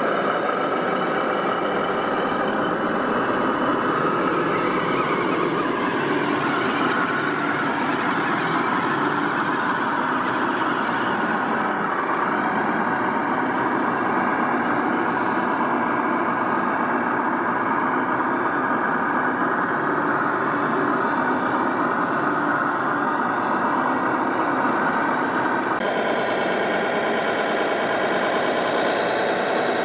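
Radio-controlled construction machines running, led by a scale Volvo L250G wheel loader: a steady engine idle sound, changing abruptly near the end.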